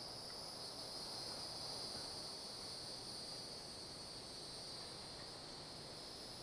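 Insects in the woods, cricket-like, keeping up a faint, steady high-pitched chorus with a higher shrill layer above it.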